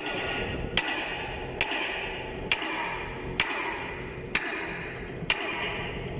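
Steady series of hammer blows on steel, about seven strikes a little under a second apart, each with a short metallic ring: a pipe joint being knocked into alignment in its fit-up clamp.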